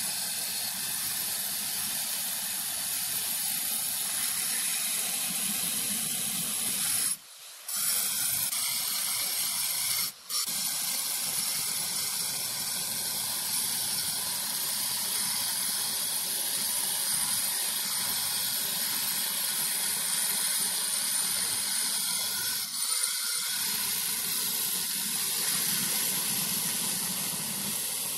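Handheld angle grinder with a stone-cutting disc running and cutting into a granite slab, a steady high grinding hiss. It breaks off abruptly twice, for a moment, about seven and ten seconds in.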